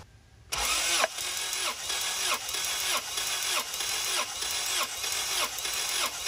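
Starter motor cranking a Honda H22 four-cylinder engine without it firing, plug wires off and throttle held wide open, for a compression test on cylinder four. It starts about half a second in and chugs evenly, about three times a second.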